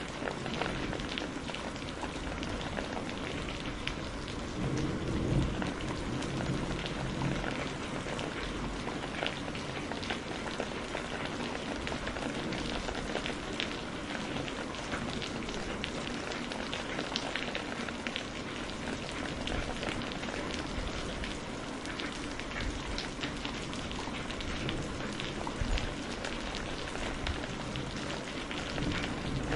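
Steady rain falling, a dense patter of drops on a hard surface. A low rumble of thunder swells briefly about five seconds in.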